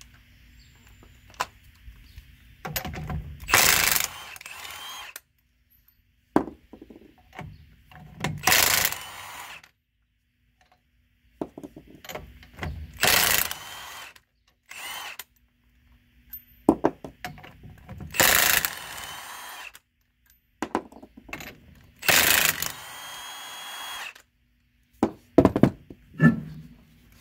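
Cordless impact wrench hammering lug nuts loose on a car's front wheel, in about five loud bursts a few seconds apart. A few sharp knocks near the end.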